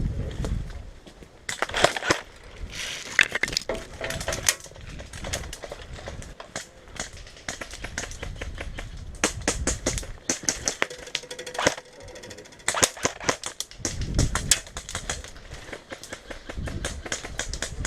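Airsoft guns firing: sharp snapping shots, singly and in quick runs, scattered throughout, with low rumbling bumps in between.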